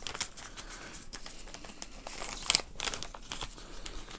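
Frosted plastic packaging bag crinkling as it is pressed and handled, with one sharper, louder crackle about two and a half seconds in.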